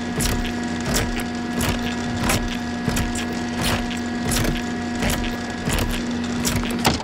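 Animated breeding-mount machine running: a steady electric hum with a rhythmic mechanical knocking about every 0.7 seconds. It cuts off shortly before the end.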